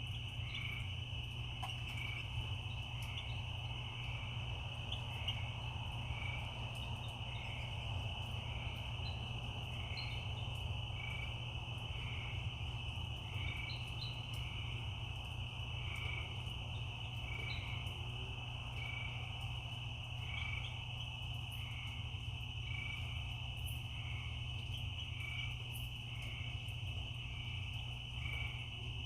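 Night chorus of crickets trilling continuously, with a second shorter call repeating evenly about every second and a half, over a steady low rumble.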